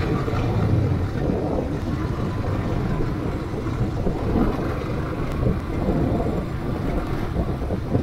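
Motorcycle running steadily as it is ridden, with wind buffeting the microphone.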